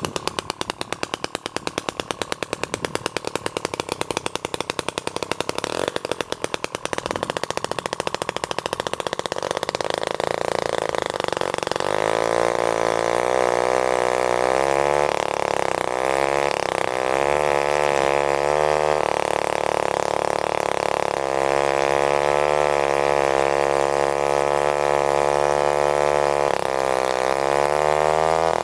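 Danarm Tornado two-stroke chainsaw. For the first ten seconds or so it runs at low speed with distinct, rapid firing pulses. Then it is opened up and cuts into a log, its engine note dipping and recovering several times as the cut loads it. The uploader puts the binding down to a splayed bar guide and a chain with missing and damaged teeth.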